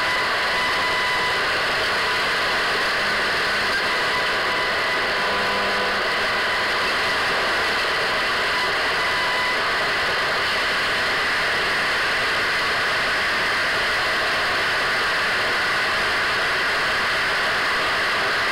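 Radio static: a steady hiss with faint whistling tones drifting in and out.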